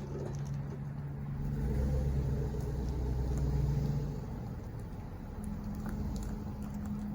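Truck engine running at low speed while the truck manoeuvres back toward a boat trailer to hitch it. The engine grows louder about two seconds in, then eases back to a steady low hum.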